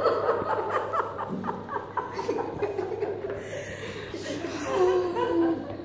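People chuckling and laughing quietly, with bits of murmured talk mixed in.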